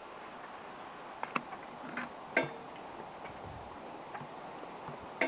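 Frogs calling from a pond: a few short, clicking calls, bunched about one to two and a half seconds in, over a faint steady background.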